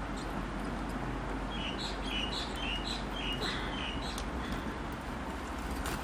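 A bird chirping a quick run of about seven short, high notes over a steady background hiss.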